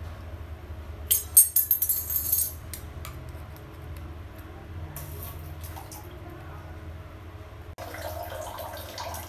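Steel screwdriver tip clicking and scraping against a chrome concealed stop-tap handle. A loud rattly run of clicks comes about a second in, then a few lighter clicks. A low steady hum runs underneath, and a steady hiss takes over near the end.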